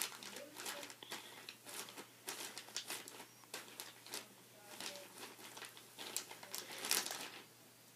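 Slime being squeezed and stretched by hand, with dense irregular wet clicks and crackles that stop near the end.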